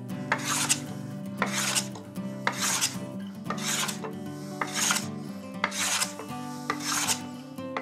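A No. 4 smoothing plane being pushed across a pallet-wood board, taking light shavings to knock down high spots and flatten the face. Each pass is a rasping swish, repeated roughly once a second.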